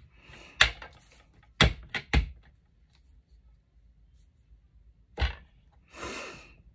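A few sharp knocks and taps of craft supplies set down or pressed on a hard work surface, three of them close together about two seconds in, then a short rustle near the end.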